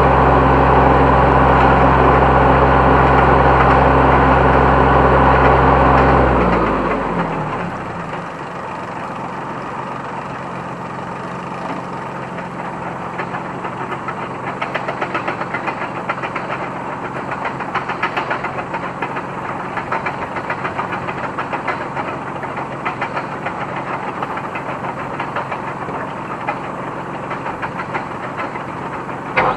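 A New Holland T1510 diesel tractor drives a New Holland 269 Hayliner square baler through its PTO, running steadily under load. About six seconds in, the drone winds down in pitch and level. What remains is a quieter engine running, with a regular knocking.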